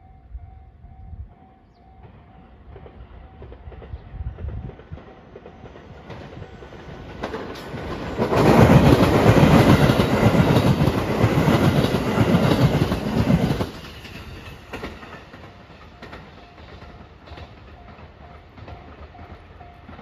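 A level-crossing warning bell dings in quick, even beats. Then the JR Marine Liner rapid electric train passes close by for about six seconds, its wheels clattering over the rail joints. After the train has gone, the crossing bell is heard again.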